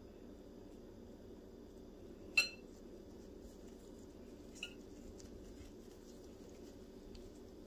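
Metal spoon clinking against a glass mixing bowl twice: a sharp ringing clink about two seconds in and a fainter one about two seconds later, over a low steady hum.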